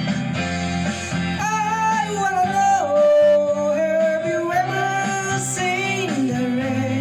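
A man singing into a handheld microphone over a recorded backing track with guitar, holding long notes that waver slightly; the singing is loudest about three seconds in.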